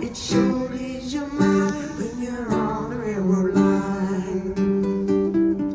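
Live acoustic guitar strummed with a voice singing along.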